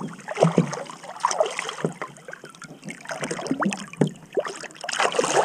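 Water splashing and sloshing against a small boat, with uneven knocks and handling noises.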